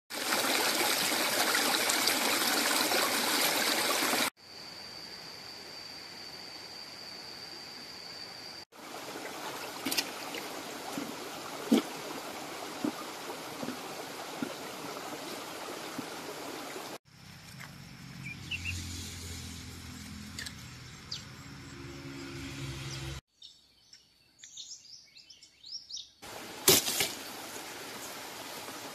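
Running forest stream heard in a string of short cuts: first a loud steady rush of water, then a quieter flow with a few sharp knocks. A brief stretch of bird song comes near the end.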